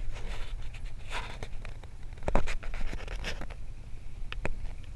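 Low, steady rumble of an ATV engine running slowly, under scattered scratching, scraping and clicking noises, with a sharp knock about two and a half seconds in.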